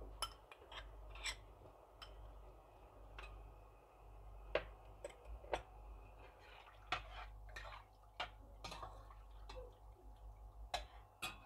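A metal spoon scraping tomato sauce out of a bowl, then stirring soup in a steel pot: faint, irregular clinks and taps of metal against the pot.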